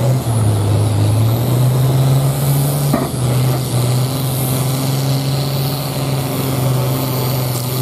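Farm tractor's diesel engine running hard under load as it pulls a weight-transfer sled down a tractor-pull track: a loud, steady low engine note, with one brief sharp knock about three seconds in.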